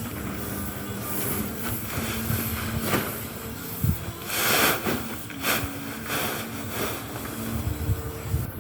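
A steady motor hum with a constant pitch under gusts of rushing, wind-like noise; the loudest gust comes about halfway through.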